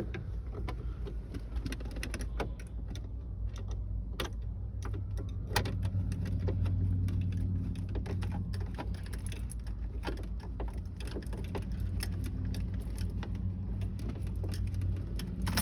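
Irregular small clicks and taps of a Phillips screwdriver driving a screw into plastic dashboard trim, over a steady low hum.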